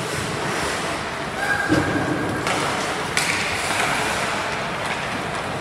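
Ice hockey game in an echoing rink: skates scraping on the ice and sticks and puck knocking, with one sharp knock about one and a half seconds in.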